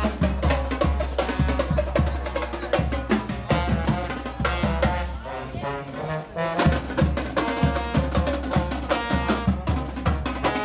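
Live brass band with drums playing: trumpets, trombones and saxophones over snare and bass drums. The drums drop out for a moment about halfway through, then come back in with the full band.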